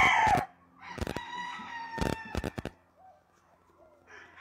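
Rooster crowing: the loud end of one crow falling off in the first half-second, then a fainter, longer crow about a second in. A few sharp clicks of scissors snipping tail feathers sound during the second crow.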